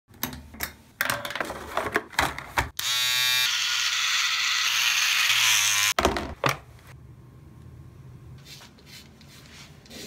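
A string of sharp clicks and knocks as bathroom fixtures are handled, then about three seconds of loud, steady rushing noise that starts with a brief pitched tone. After that come a few more knocks and faint soft strokes.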